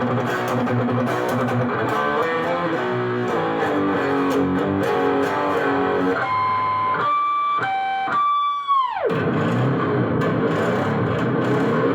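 JEM-style electric guitar playing a melodic lead line through effects. About two-thirds in, a few long high notes are held, then the pitch dives steeply down on the whammy bar and fades out before the playing picks up again.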